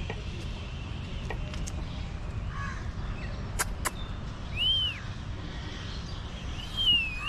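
Birds calling: two clear, arching whistled calls, one about halfway through and one near the end, over a steady low rumble, with two sharp clicks in quick succession just before the first call.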